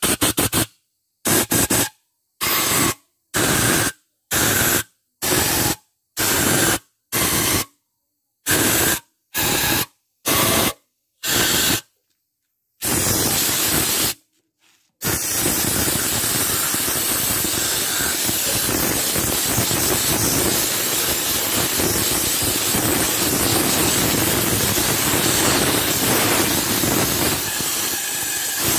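Pressure washer jet hissing as it blasts a cylinder head clean. In the first half the spray sound comes in short bursts about every 0.7 s with dead silence between; from about halfway on it runs steadily.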